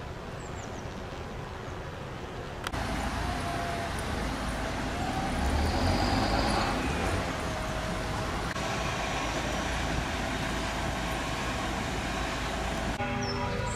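Street ambience with vehicle engine and traffic noise, a steady low rumble that gets louder from about three seconds in.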